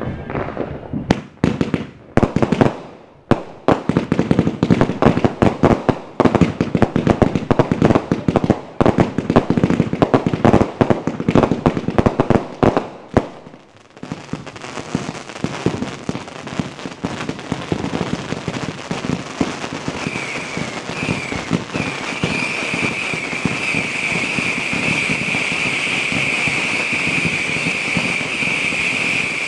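Ground fireworks going off: a long run of rapid crackling pops for about the first half. Then a fountain sprays sparks with a steady loud hiss, joined after about twenty seconds by a shrill, steady whistle.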